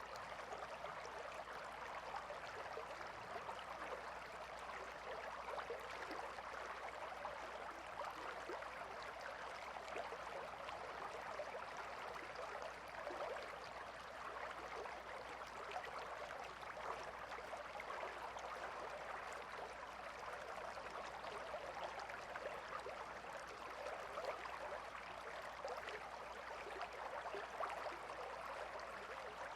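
A shallow river flowing and babbling steadily, a continuous gentle rush of water with fine splashing detail.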